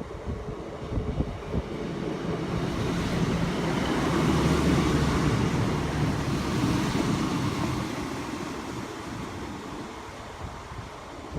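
A train passing through the station: a rumble with a low engine note that builds to its loudest mid-way and then fades as it goes by.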